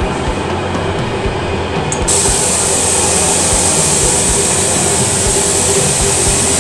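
Spray gun's compressed-air hiss, switching on suddenly about two seconds in and holding steady as Cerakote is sprayed, over a steady mechanical hum.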